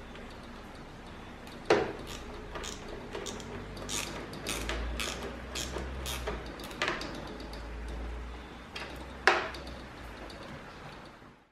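Ratcheting torque wrench clicking in quick short strokes as it tightens a clamp bolt on the filter module, with two sharp, louder clicks, one about two seconds in and one about nine seconds in.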